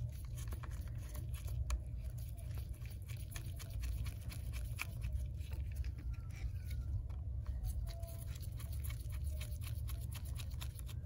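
Small screwdriver working the two pentalobe screws at the bottom of an iPhone 8 Plus: a scattered run of small sharp clicks and ticks of the tip and screw against the metal frame, over a steady low hum.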